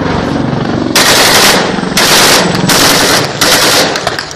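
Four long bursts of automatic gunfire, each about half a second long, starting about a second in, with a few single cracks near the end. A helicopter's engine and rotor drone is heard before the bursts.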